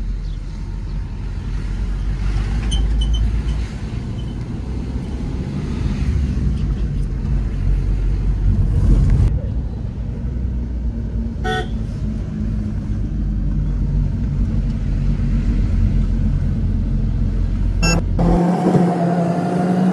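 Inside a car driving on a winding hill road: steady low rumble of engine and tyres, with a short horn toot about halfway through. Near the end the rumble gives way to a steady low hum.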